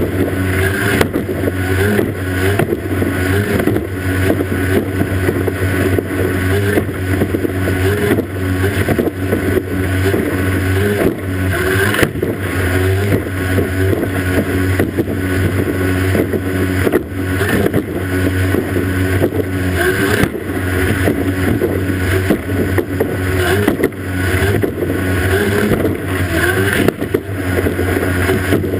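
Racing powerboat's outboard motor running hard at high speed, with rushing water and spray and a few sharp thumps as the hull hits the waves.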